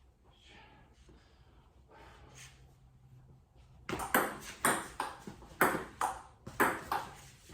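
Table tennis rally: a ping-pong ball clicking sharply off paddles and table, about two hits a second, starting a little past halfway.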